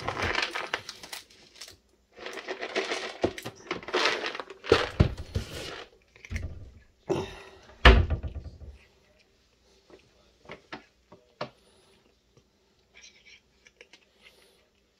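Plastic cat-treat packaging and a plastic food container rustling and crinkling in handled bursts, with clicks and a few heavy knocks, the loudest about eight seconds in. After that it goes quiet except for faint scattered clicks as the cat eats treats off the counter.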